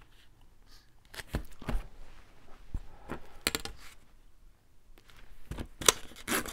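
Paper and small craft tools handled on a table: scattered short taps and rustles, with a few louder knocks close together near the end.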